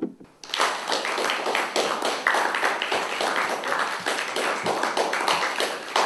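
A single knock at the very start, then an audience applauding from about half a second in: a dense, steady run of hand claps.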